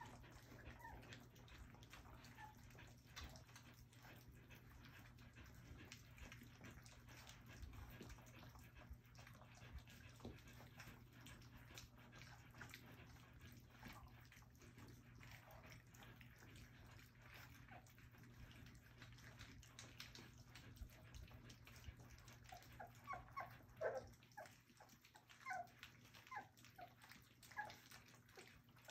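Faint wet lapping and smacking as a litter of almost four-week-old puppies eats soft food from a shallow feeding pan, with short puppy whimpers and squeaks near the end.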